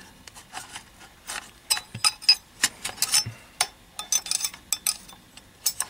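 Charging handle and bolt carrier group of a Windham Weaponry MPC AR-15 being worked back by hand in the opened upper receiver: a string of irregular metallic clicks and scrapes of steel sliding on steel.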